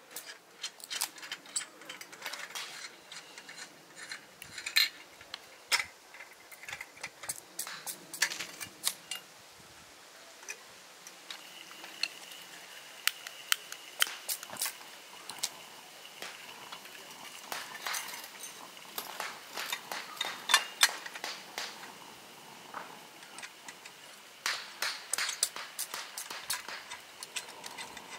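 Sharp clicks and clinks of a Coleman lantern's metal top cap and parts being handled as it is taken off, the mantles are lit with a long-nosed lighter, and the cap is put back on. A thin steady tone runs through the middle stretch.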